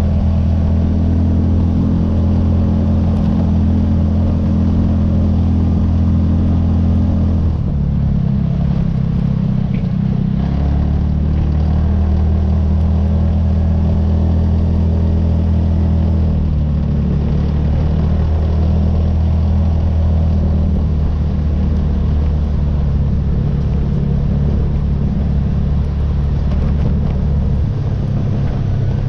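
ATV engine running under way on a gravel road: a loud, steady low drone whose pitch steps down and back up a few times as the throttle changes.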